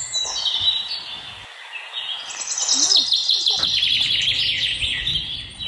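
Many small birds chirping: a few calls at first, then a dense run of rapid chirps from about two seconds in until near the end.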